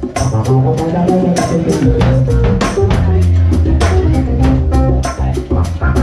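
Live jazz band jamming: drum kit and hand drums keep a steady quick beat, about four hits a second, over a low bass line.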